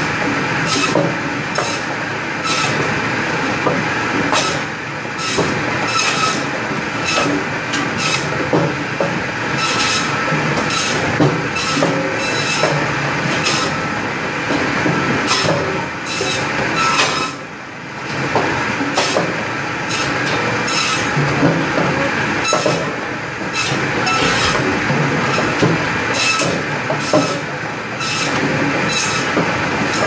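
Firewood processing machine with an inclined conveyor running steadily, with frequent sharp knocks and wooden clatter as slab wood is cut and the pieces drop and ride up the conveyor. About halfway through it briefly quietens.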